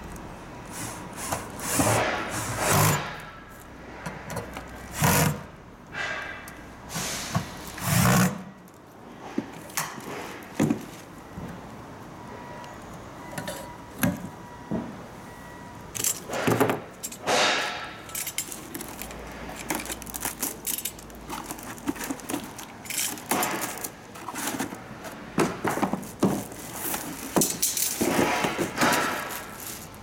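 Irregular knocks, clatter and rustling from handling the parts of a Shinil industrial stand fan during assembly: the metal pole and base, cardboard boxes and the plastic wrapping around the motor housing.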